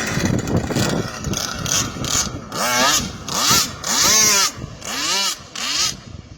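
Small two-cylinder two-stroke engine of a radio-controlled long-tail boat running. From about halfway through it is revved up and down in four or five quick throttle blips, the pitch rising and falling each time.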